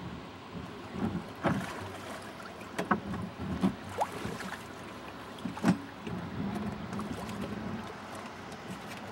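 Irregular knocks and bumps from gear on a suction dredge rig, over a steady rushing background; the loudest knock comes a little past halfway.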